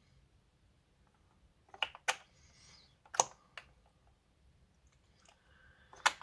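A handful of short, sharp clicks at irregular intervals over a quiet room: the small plastic clicks and taps of handling a tube of liquid eyeshadow and its applicator wand.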